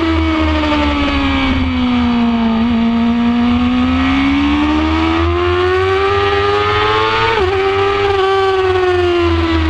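2006 Yamaha R6 inline-four sport-bike engine at high revs on a race track: its note drops, then climbs steadily for several seconds as it pulls through a bend, with a brief dip about seven seconds in, and falls away near the end as the bike slows. A steady low rumble of wind on the camera lies under it.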